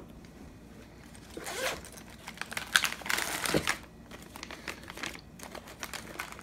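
Thin plastic bags holding spare tri-blade propellers crinkling and rustling as they are handled and pulled out of a mesh pocket, in a few bouts with a light knock about three and a half seconds in.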